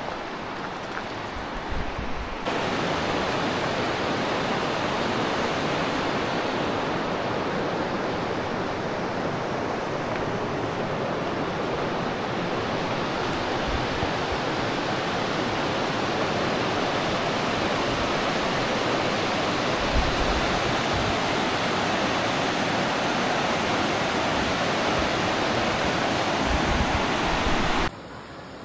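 Steady rushing of a fast, rocky mountain river, loud and unbroken. It starts abruptly about two seconds in and cuts off just before the end.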